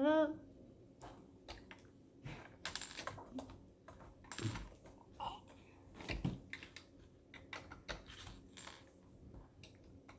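Plastic Lego bricks clicking and rattling as pieces are handled, sorted and pressed together, in irregular light clicks.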